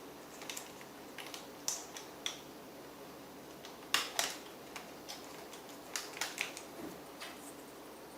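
Light clicks and taps of small laptop parts and tools being handled, at irregular intervals. The sharpest comes about halfway through, with small clusters before and after it.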